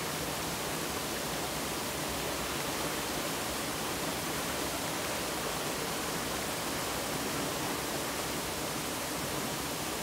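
Mountain valley stream flowing: a steady, even rush of water.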